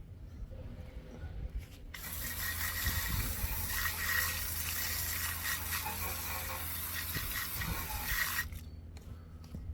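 Water spraying onto a car wheel to rinse it: a steady hiss that starts abruptly about two seconds in and cuts off about six seconds later, over a low steady hum.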